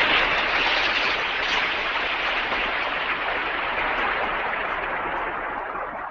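Title-logo sound effect: a steady hissing, rushing noise with no tune, slowly fading and dropping off near the end.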